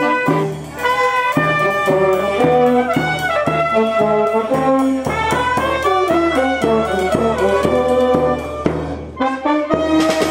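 Brass band playing a lively march-like tune over a steady, pulsing bass beat.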